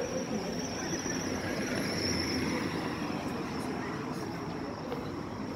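City street traffic noise, a vehicle passing with a thin high-pitched squeal that fades out about halfway through.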